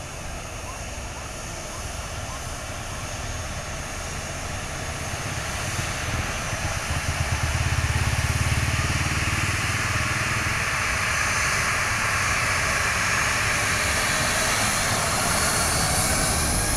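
Twin jet engines of a Ryanair Boeing 737 running at taxi power: a steady rush and whine that grows louder over the first several seconds as the airliner turns close by, then holds.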